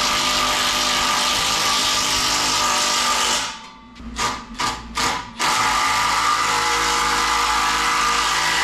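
Handheld power tool running under the car, driving the fasteners of an exhaust being mounted. It runs steadily, stops about three and a half seconds in, gives three short trigger pulses, then runs steadily again.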